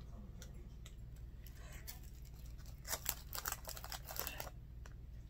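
Small plastic bags of diamond painting drills crinkling and crackling as they are handled and set down, with a cluster of crackles about three seconds in.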